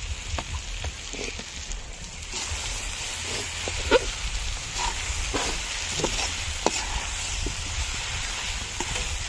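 Chopped cooked egg and masala gravy sizzling in a kadhai, with a metal spatula scraping and clicking against the pan as they are stirred together.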